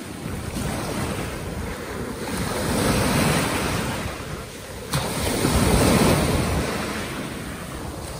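Ocean surf breaking and washing up the beach, swelling twice, about three seconds in and again after the middle, with wind buffeting the microphone. A brief sharp click just before the second surge.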